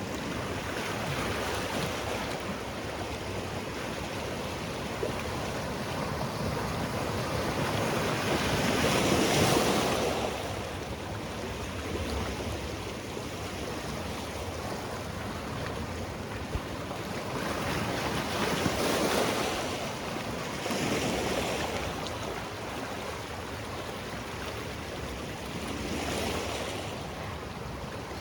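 Sea waves washing onto a rocky shore: a steady surf rush that swells as waves break, loudest about nine seconds in and again around nineteen seconds, with smaller surges near twenty-one and twenty-six seconds.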